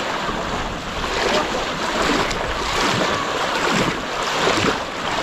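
Water splashing and sloshing as many people wade through a shallow pond hauling fishing nets, with faint calls of people in the background.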